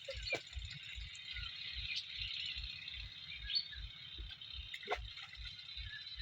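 Outdoor rural ambience: a dense, steady chorus of high chirping, with a low regular throb about three to four times a second underneath and a couple of brief knocks.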